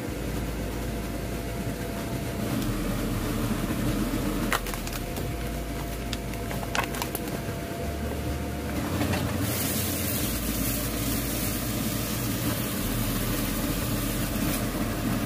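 Steady kitchen hum with a few sharp clinks; about nine seconds in, a high hiss starts and keeps on: lamb steaks beginning to sizzle in a hot pan.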